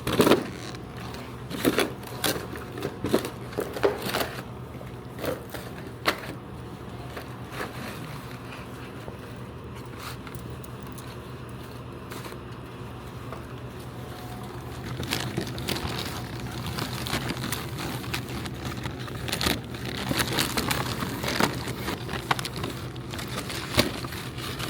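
Plastic water bottles and their packaging being handled and loaded into a vending machine: scattered knocks and clicks, then denser crinkling and rustling from about halfway through, over a steady low hum.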